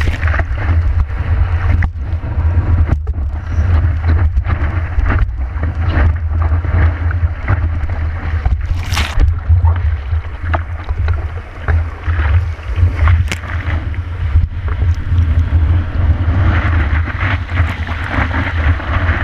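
Sea water splashing and rushing over the nose of a surfboard and an action camera's waterproof housing as a surfer paddles through broken waves, over a heavy, steady low rumble of wind and water on the housing. The rushing grows louder for the last few seconds as whitewater washes over the board.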